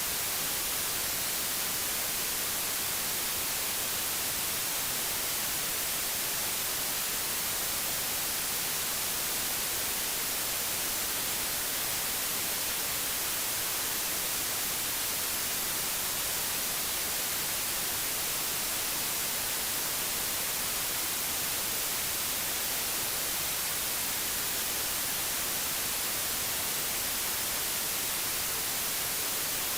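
Digitally generated white noise with a flat spectrum: a steady, unchanging hiss.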